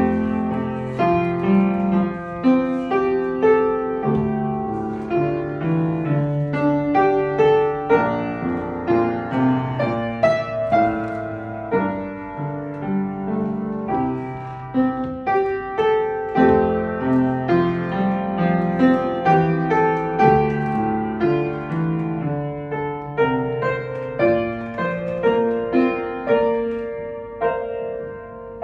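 Yamaha upright piano played solo: a continuous stream of struck notes, a melody over a moving accompaniment.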